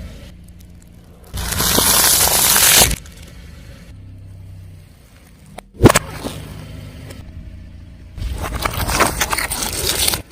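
Car tyre rolling over and crushing objects: a loud crackling crunch lasting about a second and a half, a single sharp snap about six seconds in, and another long crunch near the end, with a car engine running low underneath.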